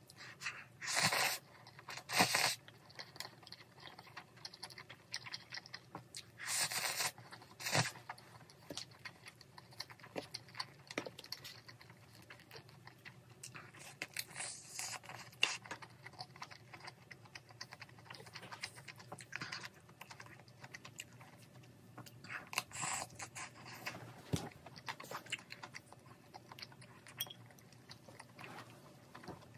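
Close-miked eating of spicy stir-fried instant noodles: several short, loud slurps of noodles between steady chewing and small clicks, with a bite into a kielbasa sausage around the middle.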